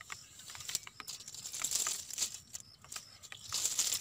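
Cast net rustling and crinkling as it is handled and dragged over grass, with a few sharp clicks; the rustling swells twice, about halfway through and again near the end.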